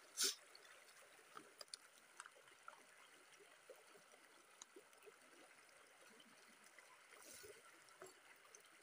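Faint, steady flow of a shallow river over rocks, with scattered small ticks and a brief hiss just after the start.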